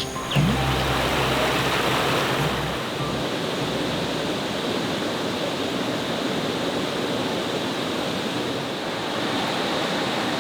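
Steady rainfall, an even unbroken hiss.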